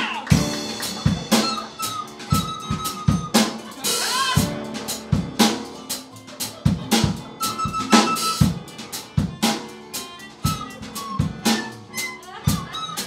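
Live band playing an instrumental passage: a drum kit keeps a steady beat of kick and snare hits under piano and acoustic guitar, with held notes above it.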